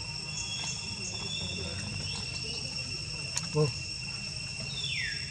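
Steady, high-pitched drone of insects. About three and a half seconds in, a short, louder call cuts in, and a few quick falling whistles come near the end.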